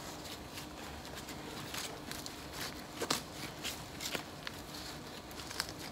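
Hands working potting soil around a camellia in a plastic pot: irregular scrapes, rustles and a few soft knocks.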